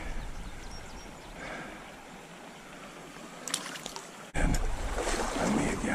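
Flowing trout-stream water, a steady rush. About four seconds in, a louder rush of noise starts suddenly and lasts a second and a half, preceded by a few light clicks.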